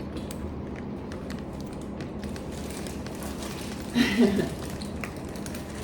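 Steady low room noise, with a short vocal sound about four seconds in.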